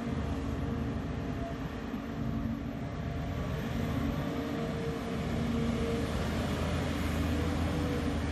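Volvo EC290BLC excavator's diesel engine working under load as the machine digs and swings a bucket of dirt, a steady drone with faint held tones over it. It gets a little louder about five seconds in.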